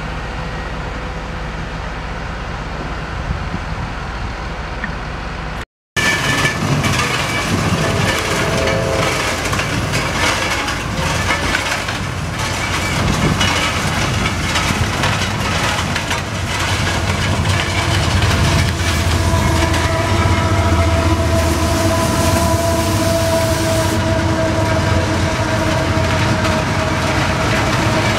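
A diesel-powered track maintenance machine with a rotating side broom passes close, engine running and broom sweeping. Its steady low sound breaks off briefly about six seconds in and returns much louder. Near the end, diesel freight locomotives run past, with a steady whine over a low engine sound.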